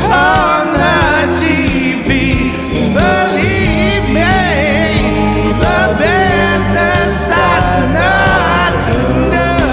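Rock band song with a bending, melodic lead line over steady bass and drums. No lyrics are clear.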